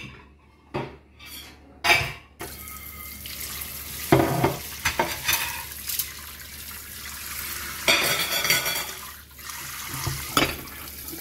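Kitchen tap running into a stainless steel sink as a plate and cutlery are rinsed under the stream, with clinks and clatters of dishes and silverware. A few clattering knocks come first, and the water starts about two seconds in.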